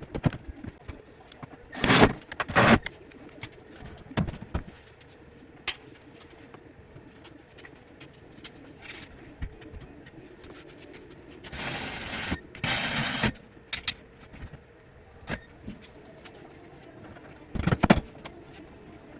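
Scraping and clunking as the third-row seat is handled and worked into place, in five louder bursts: two short ones about two seconds in, two longer scrapes around the middle, and one near the end, with small knocks in between.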